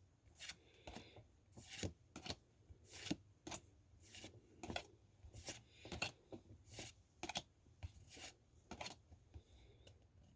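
Pokémon trading cards being flipped through one after another: a quiet, irregular series of short swishes and snaps as card slides over card, about two a second.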